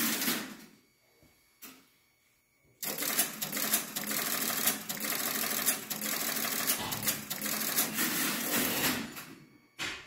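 Relays and crossbar switches of a Western Electric No. 5 crossbar telephone exchange operating as a test call is set up and tested. A single click, then from about three seconds in a dense, rapid clatter of relay clicks for about six seconds that then dies away.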